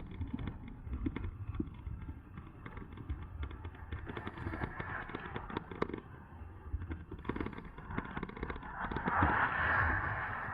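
Wind rushing over the microphone and tyres rumbling over rough, sandy ground on an electric bike going at about 28 mph, with frequent small rattles and knocks from the bike. There is a louder hissing rush about nine seconds in.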